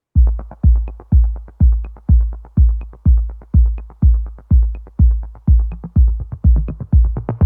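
Electronic outro music: a lone deep kick drum beat hitting steadily about twice a second, with a light tick on every other beat.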